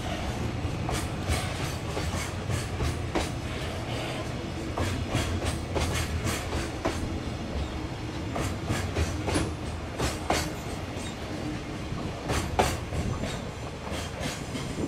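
Freight train running past, its wheels clacking over rail joints again and again over a steady low drone, then dying away at the end.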